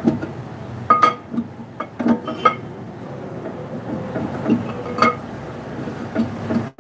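Sharp metallic clinks, each with a short ring, from knocking on and handling a truck's steel brake drum while loosening it for removal. There are about five knocks spread over the seconds, with a brief break in the sound near the end.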